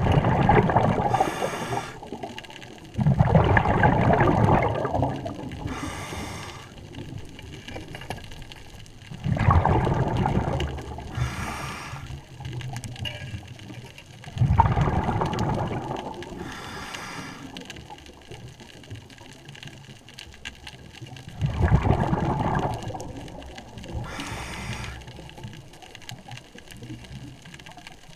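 Scuba diver breathing through a regulator: a short hiss on each inhale, then a longer, louder rush of exhaled bubbles, in a slow cycle about every five to six seconds.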